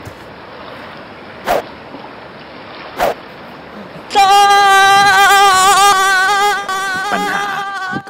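A man lets out a long, loud wail about four seconds in, held at one pitch with a wavering tremble until the end. Before it come two sharp short knocks about a second and a half apart, over the steady wash of surf.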